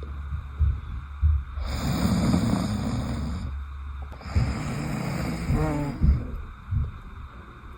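A person snoring: long noisy breaths about every two and a half seconds, with a few low thumps between them.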